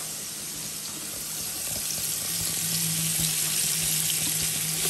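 Sliced onions sizzling in hot coconut oil in a pot, a steady frying hiss that grows slightly louder.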